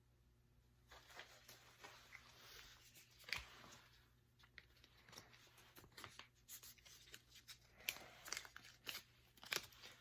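Faint rustling and crinkling with scattered sharp taps as Pokémon cards and their foil wrappers are handled, starting about a second in.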